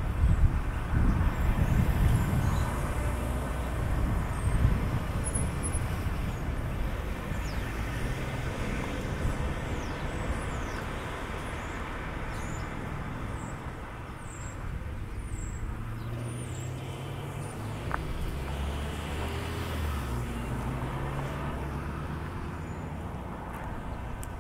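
Street traffic: a motor vehicle passes close at the start, its rumble fading over the first few seconds. Later a vehicle engine runs with a low, steady hum, and faint short high chirps come and go in the middle.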